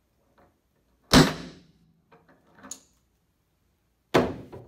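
A three-pound hickory hammer strikes the King Pin B portable Brinell tester once, about a second in. It is a single sharp blow with a short ringing tail, the sound of the tester's pin breaking at its known force and pressing the Brinell indentation. A second, lighter knock comes near the end.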